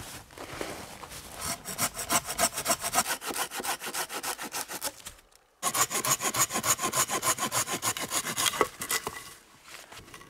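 Silky Pocketboy Curve folding pruning saw cutting through a dry, dead spruce pole in quick back-and-forth strokes. The sawing comes in two runs with a short break about halfway.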